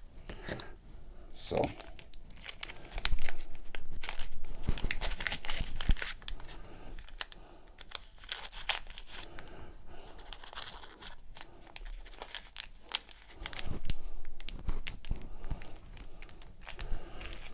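Plastic packaging crinkling and rustling as small accessories are unwrapped and handled, with irregular clicks and taps as cables and parts are laid down on the desk.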